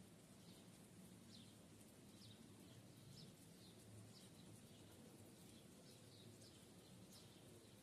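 Faint birds chirping: a string of short, falling chirps at an irregular pace, over a steady low background hum.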